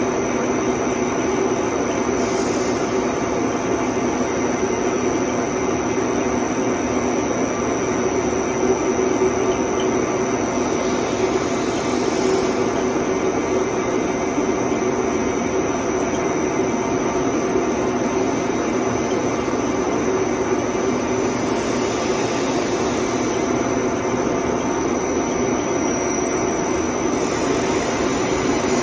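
ALCK6150 CNC lathe running under test, turning a long metal bar held in a steady rest: a steady machine hum with a thin high whine, broken a few times by short hissing bursts.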